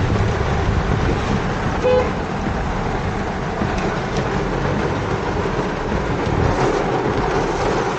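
Heavy rain drumming on a moving Honda Amaze and tyres hissing on the flooded road, heard as a steady dense wash from inside the cabin. A short beep sounds about two seconds in.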